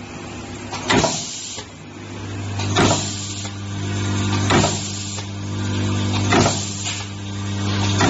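Semi-automatic mute terminal crimping machine crimping terminals onto wires: a sharp press stroke about every two seconds over the machine's steady hum.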